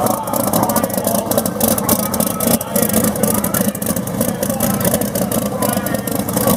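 Doorslammer drag car's race engine running at a low, lumpy idle as the car rolls slowly, with a steady rough note and sharp, irregular exhaust crackles.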